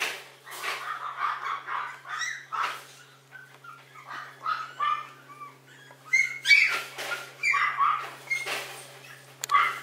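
Maltese puppy whining and yipping in short, high calls, one after another, loudest between about six and eight seconds in. A steady low hum runs underneath.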